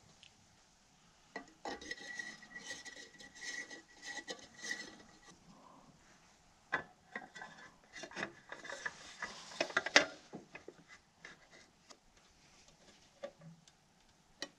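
Small metal-and-glass handling sounds from an outdoor wall lantern being assembled: a glass light bulb squeaking and scraping as it is screwed into the fixture's socket, then the metal-framed glass lantern housing clinking and knocking into place, with one sharp click about ten seconds in.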